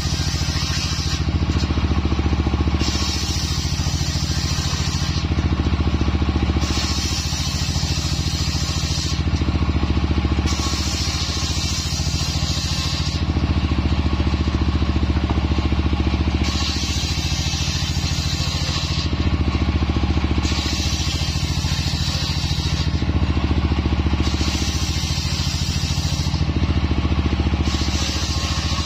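Homemade engine-driven table circular saw ripping jowar (johar) wood into boards: the high hiss of the blade in the wood comes in roughly every four seconds, about eight passes in all, over the steady drone of the engine driving it.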